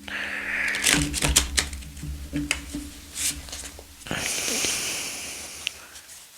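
A new deck of thick, glossy tarot cards being shuffled by hand: a run of sharp card clicks and snaps, then a longer rush of cards riffling together about four seconds in. The cards are still stiff and not yet broken in.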